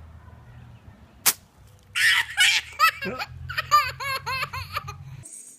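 A young child laughing hard in a quick run of high-pitched bursts, after a single sharp click about a second in.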